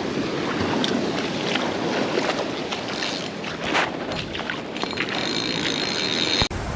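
Ocean surf washing on the beach with wind buffeting the microphone, a steady rushing noise with a few light clicks and a brief high tone in the middle; the sound breaks off suddenly near the end.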